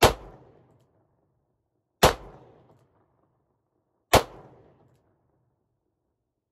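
Three 9mm shots from a Rock Island Armory AL 9.0 revolver, fired single action about two seconds apart, each with a short fading echo.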